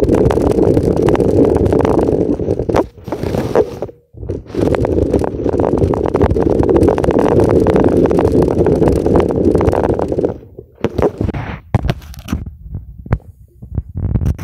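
Loud, low rumbling noise from a phone's microphone being handled and jostled, with a brief drop-out about four seconds in. After about ten seconds it gives way to scattered knocks and taps.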